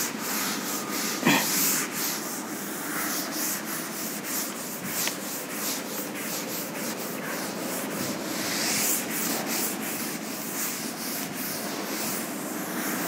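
Chalkboard duster rubbing over a chalkboard in quick repeated strokes, wiping the chalk off.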